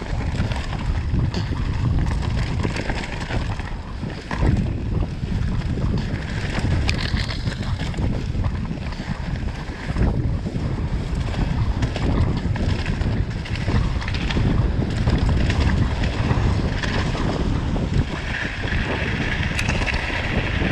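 Wind buffeting the microphone of a camera riding down a trail on a downhill mountain bike, a steady low rush with scattered knocks and rattles from the bike over the ground.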